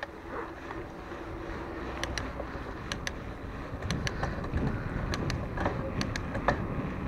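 Mountain bike rolling along a paved street: low tyre and wind noise with scattered light clicks and ticks from the bike, starting about two seconds in.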